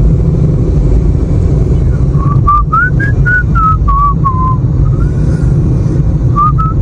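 Steady low road and engine rumble inside a moving car. From about two seconds in, a person whistles a short tune of single notes, rising then falling, with two more notes near the end.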